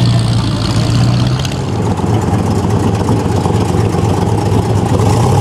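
V8 engines of classic American muscle cars rumbling past at low speed: first a 1968 Dodge Charger's V8, then, about two seconds in, a C2 Corvette convertible's V8 through its side-mounted exhaust pipes, revving up slightly near the end.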